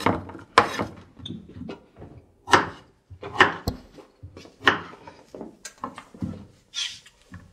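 Kitchen knife chopping vegetables on a wooden cutting board: separate sharp knocks, irregularly spaced about a second apart.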